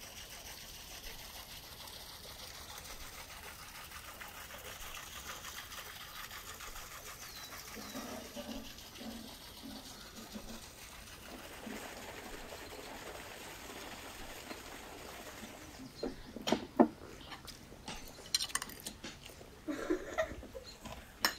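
Outdoor ambience with small birds chirping. Hens cluck in short runs a little before halfway. In the last few seconds forks clink sharply on plates.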